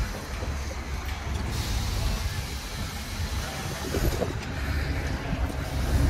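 A Dodge Challenger 1320's 6.4-litre HEMI V8 running at low revs as the car is driven slowly into a service bay, a steady low exhaust drone.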